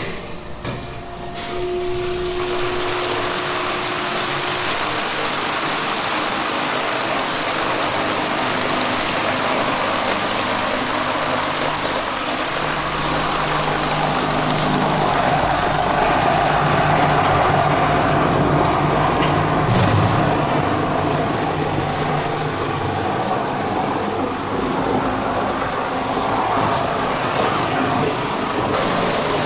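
A large bowl cutter running, its rotating bowl and blades chopping and churning chunks of frozen fish paste: a steady mechanical drone with a grinding noise. A low hum joins about twelve seconds in, and there is a brief clatter about twenty seconds in.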